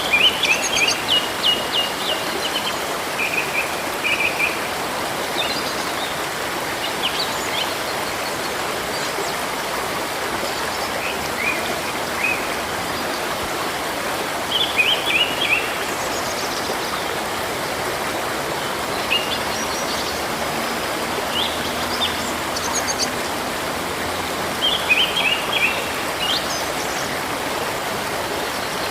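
Steady rush of river water, with small birds chirping in short runs of quick, high notes every few seconds.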